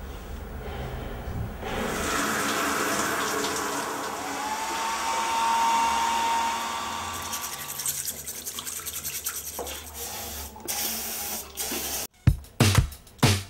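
Rushing water that swells and then fades, with a steady whistling tone partway through. About twelve seconds in it cuts off sharply and a music track with a strong drum beat begins.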